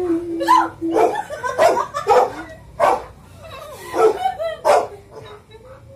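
A dog barking repeatedly, about seven short barks spaced roughly half a second to a second apart.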